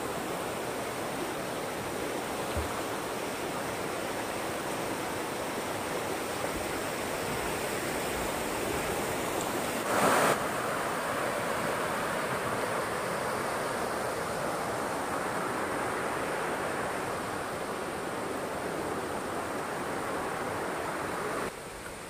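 Stream water rushing over rock slabs in a steady rush, with one brief louder surge about ten seconds in; the sound drops away suddenly near the end.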